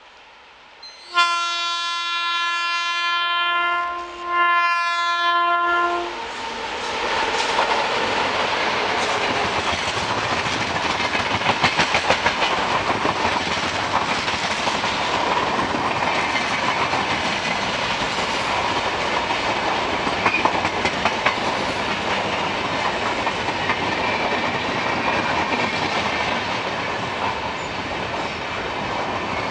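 WAP-7 electric locomotive sounding its horn in two blasts, a long one and then a shorter one. Then a passenger train runs close past with a steady rumble and the clickety-clack of its wheels.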